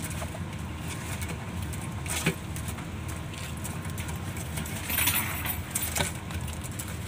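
A low steady rumble, with a few short scuffs and taps as a greater coucal strikes at a snake on a concrete floor: once about two seconds in, then a cluster a second or two before the end.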